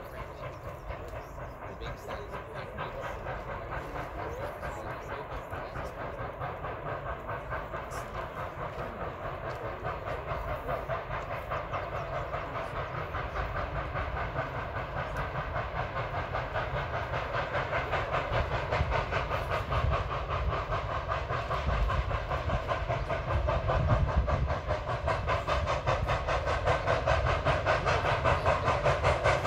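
Nickel Plate Road 765, a 2-8-4 Berkshire steam locomotive, approaching under power: its exhaust chuffs in a fast, steady beat that grows steadily louder as it nears.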